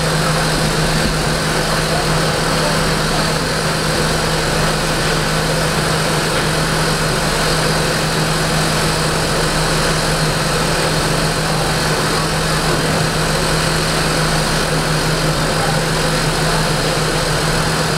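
Engine idling steadily, a constant low hum that does not change.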